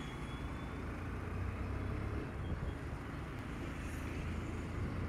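Steady low rumble of riding a motorcycle in city traffic: the bike's engine and wind noise on the microphone, with no sharp events.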